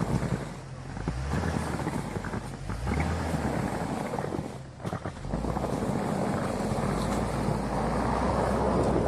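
A 4x4 vehicle's engine running as it drives in snow, with wind on the microphone; a brief lull about five seconds in, then a steadier, louder rumble.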